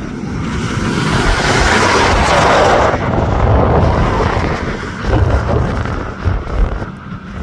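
Boeing 737 MAX 8's CFM LEAP-1B turbofan engines running as the jet moves along the runway: a broad jet roar that swells a second or two in and then eases as the aircraft draws away.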